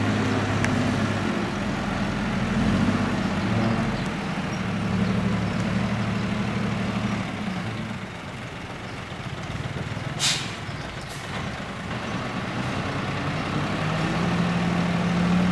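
Ten-wheel dump truck's diesel engine running as the truck creeps along with its tipper bed raised, the engine note rising and falling. About ten seconds in, a short sharp hiss of air brakes.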